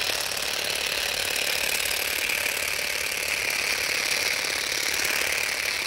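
Parkside PGSA 4 A2 cordless shrub shears running steadily, the reciprocating shrub blade buzzing as it cuts through thuja foliage.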